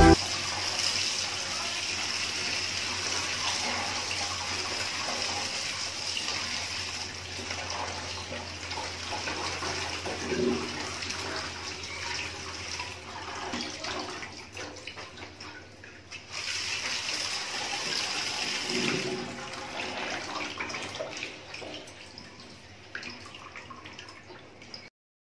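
Tap water running into a sink and splashing over chopped cabbage in a plastic colander while a hand stirs and rinses it. The flow drops away briefly around the middle, starts again suddenly, and fades out near the end as the colander is lifted to drain.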